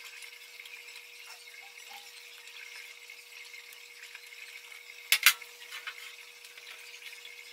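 Quiet handling of a thin clear plastic sheet and a gel window sticker, over a steady low hiss and faint hum. About five seconds in come two sharp crackling clicks close together, followed by a few softer ticks.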